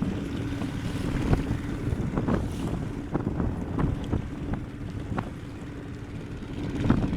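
Small motorboat running through choppy waves in strong wind: a steady motor hum under heavy wind buffeting on the microphone, with repeated slaps of the hull against the waves.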